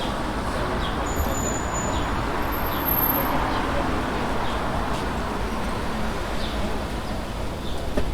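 City street ambience: steady traffic noise with small birds giving short chirps now and then, and a thin high-pitched whistle for a couple of seconds about a second in.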